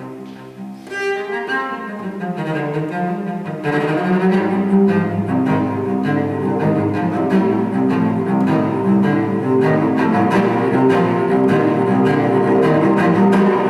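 Solo cello playing a tango with the bow. It opens quietly with a high note and a falling run, then grows louder about four seconds in with quick, busy notes lower down.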